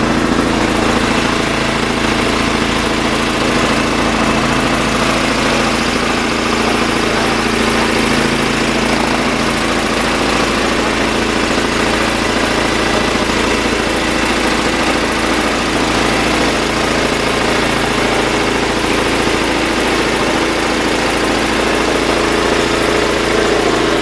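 Small pull-start gas engine driving an air compressor, running steadily while the compressor builds air pressure.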